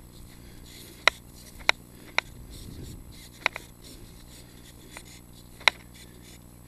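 About five sharp, short clicks at uneven intervals, spread over a few seconds, above a faint steady hum and hiss.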